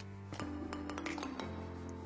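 Background music: sustained notes that change every half second or so.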